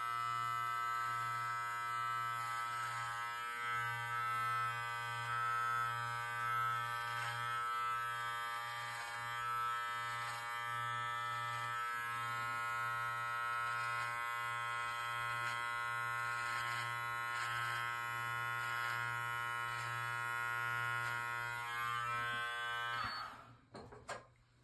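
Live Bearded MT-1 cordless beard trimmer running with a steady buzz as it trims the beard along the jaw and neck. It switches off about a second and a half before the end.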